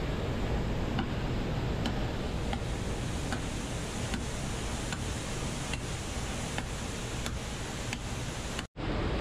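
Steady rush of a waterfall and the flowing stream below it, with faint sharp ticks coming regularly, about every three-quarters of a second. The sound cuts out for an instant near the end.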